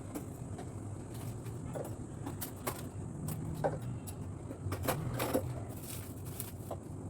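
Scattered clicks and light knocks of containers and fridge parts being handled while a mini refrigerator is emptied, over a steady low hum.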